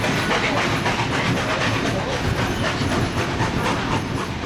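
Steam-hauled heritage train behind NSW C36 class locomotive 3642, heard from an open carriage window as it rolls slowly out of a station: a steady rumble with a repeated clatter from the wheels and running gear.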